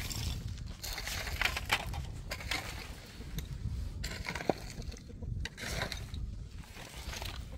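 Irregular crunching and scraping on stony rubble and gravel, with many sharp clicks, over a steady low rumble.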